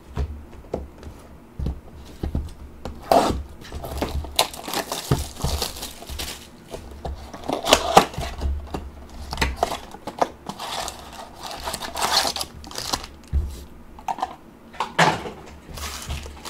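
A cardboard trading-card blaster box being torn open by hand and its stack of wrapped card packs pulled out: irregular cardboard tearing and wrapper crinkling, with several louder rips along the way.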